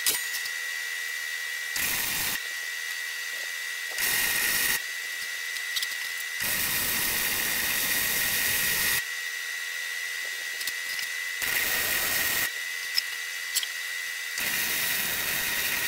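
Lincoln Electric Handy MIG wire-feed welder tack-welding a corner of steel bed-frame angle iron: five bursts of arc crackle, the longest about two and a half seconds, with short pauses between. A steady thin high whine runs underneath.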